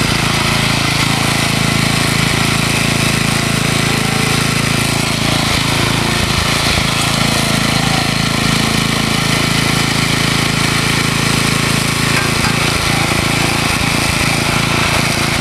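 Small gasoline garden tiller running steadily under load as its tines churn through garden soil.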